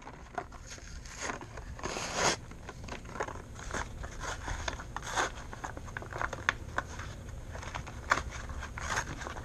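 Packaging of a hermit crab climbing branch being handled and opened by hand: irregular clicks, crinkles and scrapes, with a longer rustle about two seconds in, over a steady low rumble.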